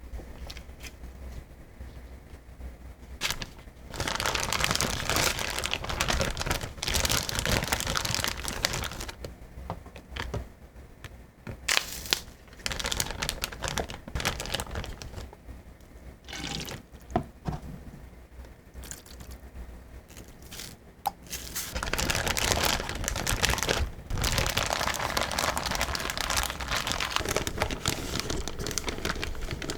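Kitchen food-preparation noises: two long spells of rushing noise with handling, crinkling and scattered knocks between them.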